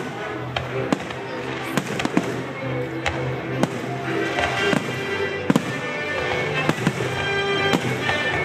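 Fireworks going off in a steady series of sharp bangs, about one or two a second, some in quick pairs, over loud show music.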